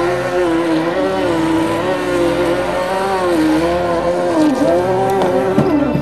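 Small RC fishing boat's motor whining steadily, its pitch wavering and dipping twice, sharply about four and a half seconds in.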